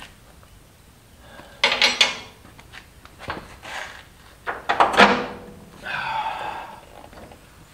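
Metal tools clanking and knocking against a truck's steel frame and suspension parts as bolts are worked by hand. A pair of sharp clanks comes about a second and a half in, then a quicker cluster of knocks around five seconds in, and a brief scraping rattle just after.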